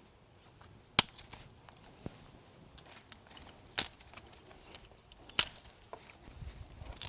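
Dry twigs snapping sharply as they are broken by hand, four loud cracks spread through the clip. Between them a small bird gives a run of short, high, falling chirps about twice a second.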